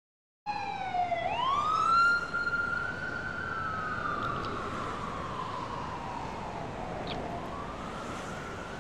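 Emergency vehicle siren wailing over steady city traffic noise: it cuts in suddenly, dips, climbs sharply to a high note and holds, then slowly falls and starts climbing again near the end.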